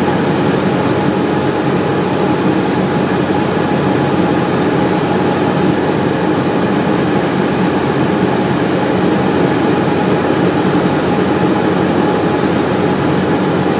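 Cessna's single piston engine and propeller running steadily in flight, heard as a loud, even drone inside the cockpit.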